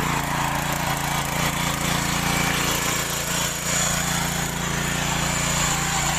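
Mini power tiller's small engine running steadily under load as its rotary tines churn dry, loose soil.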